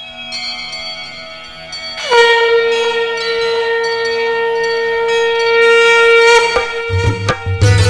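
Music intro: over a soft background, a single long horn note like a blown conch shell swells in about two seconds in and is held steady for about four seconds. Drums and bass come in near the end.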